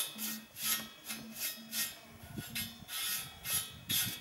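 Bristle paintbrush brushing anti-rust paint along a steel bar in quick back-and-forth strokes, about two to three strokes a second.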